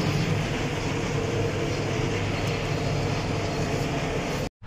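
New Holland T7 165 S tractor running steadily under load while mowing grass, heard from inside the cab, with a steady low engine drone. It cuts off suddenly near the end.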